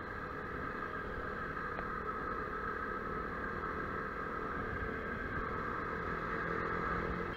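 Motorcycle engine running at road speed, with steady wind rush on the rider's camera microphone.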